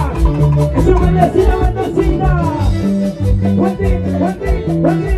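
Live Andean fiesta band music over large PA speakers: a heavy bass line, a melody with sliding notes, and a steady quick beat.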